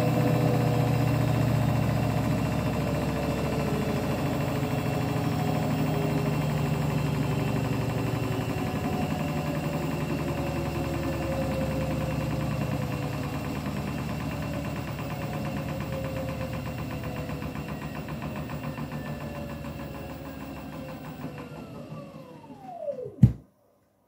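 Beko WTK104121W washing machine winding down at the end of its 1200 rpm final spin: the motor's whine slowly falls in pitch as the drum slows. Near the end the pitch drops steeply as the drum coasts to a stop, then a single sharp knock.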